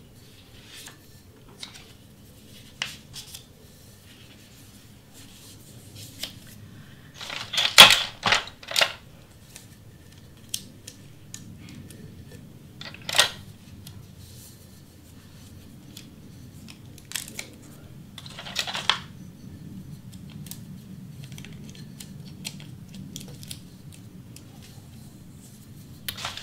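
Sublimation paper being handled and wrapped around a tumbler blank: scattered paper crinkles, taps and clicks over a faint steady hum. There is a louder cluster of rustles about eight seconds in, a sharp crinkle around thirteen seconds, and a longer rustle near nineteen seconds.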